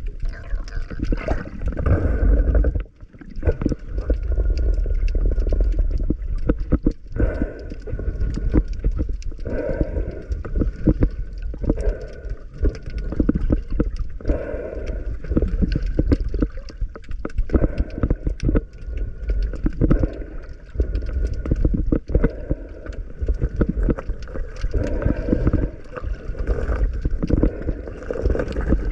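Water gurgling and sloshing around the microphone in the sea, over a heavy low rumble with many small irregular clicks, briefly dropping out about three seconds in.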